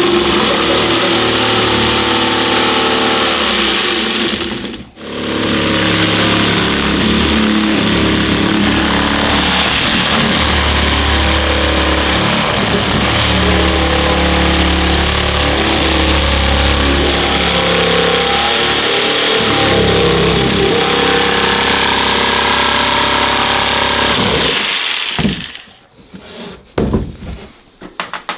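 Electric jigsaw cutting vinyl plank flooring, its motor pitch shifting as the blade works through the plank. It stops for a moment about five seconds in and starts again, running until shortly before the end, when a few light knocks follow.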